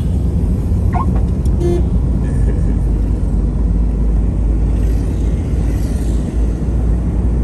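Steady low rumble of a car driving, heard from inside its cabin: engine and tyre noise on the road. A brief faint chirp comes about a second in.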